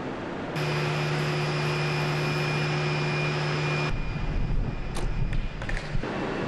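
A steady mechanical hum that cuts off abruptly about four seconds in, followed by a few sharp knocks.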